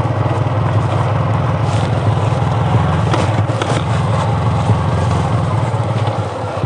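TVS Apache RTR 200 4V's single-cylinder engine running steadily as the motorcycle is ridden, with a few faint clicks near the middle.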